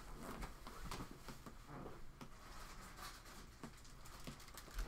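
Faint, scattered light clicks and rustles of small items being handled at a table.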